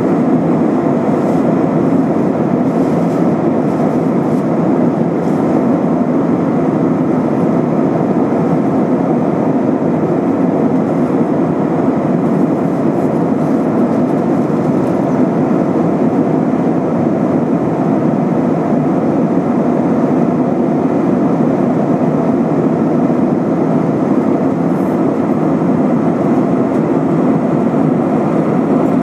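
Steady, even roar inside the cabin of an Airbus A320-232 in flight: the IAE V2500 turbofans and the rush of air past the fuselage.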